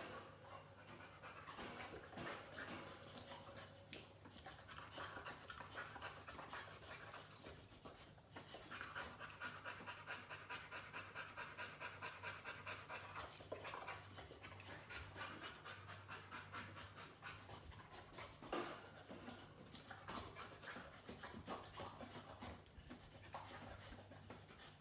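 A boxer dog panting faintly in quick, rhythmic breaths, most even for several seconds about a third of the way in.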